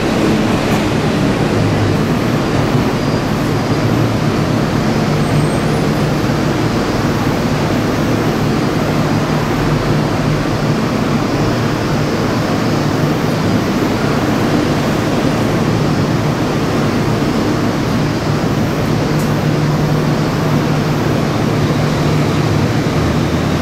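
Steady running noise of a moving road vehicle: a constant low engine hum under even road noise.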